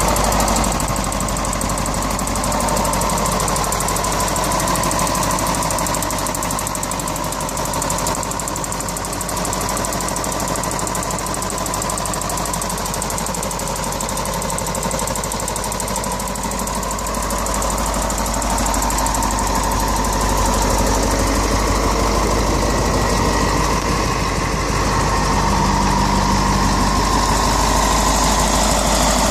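Detroit Diesel 8.2-litre V8 diesel engine of a 1985 Chevrolet C70 truck idling steadily.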